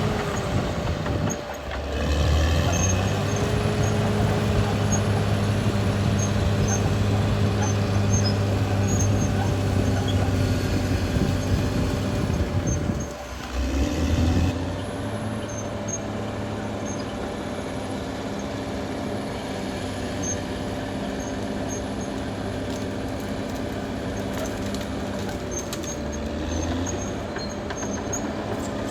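Caterpillar D6R XL bulldozer's diesel engine running steadily under load. The engine note drops briefly twice, about a second and a half in and about halfway through, and glides to a new pitch near the end.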